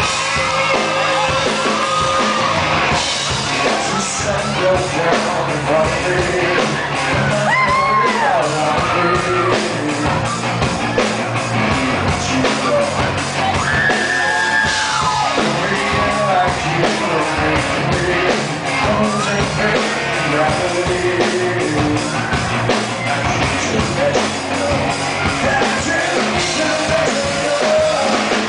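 Live rock band playing with a male lead singer, with shouts and yells from the crowd over the music.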